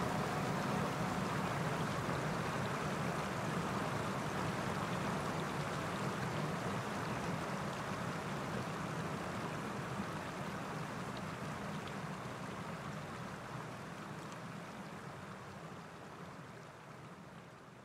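Shallow spring-fed stream flowing over stones, a steady rush of water that slowly fades out over the last few seconds.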